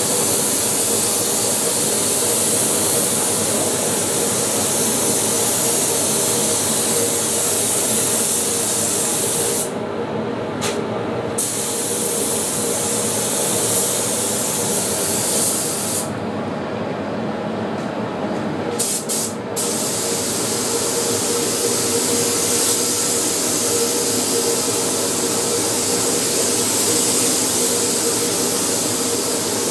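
Gravity-feed air spray gun hissing steadily as it sprays paint onto a car body. The hiss stops briefly twice, once about ten seconds in and again for a few seconds around sixteen seconds in, leaving a steady lower hum underneath.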